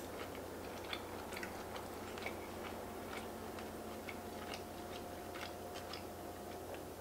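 Close-miked chewing of a mouthful of curry-sauced fettuccine, heard as many small, soft wet mouth clicks scattered irregularly.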